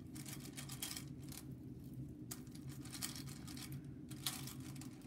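Flat glass marbles clicking and scraping against each other and the glass bowl as paperwhite bulbs are pushed and settled into them, in three short spells, over a steady low hum.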